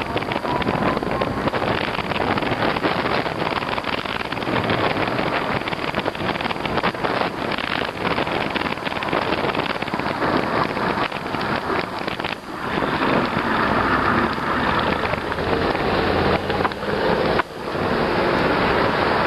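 Wind rushing over the microphone of a moving e-bike, a dense, steady buffeting with irregular crackle that drops away briefly twice.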